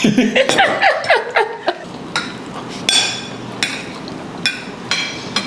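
Metal forks clinking and scraping on ceramic dinner plates as people eat: about five separate clinks, each with a short bright ring. Soft voices murmur in the first second or two.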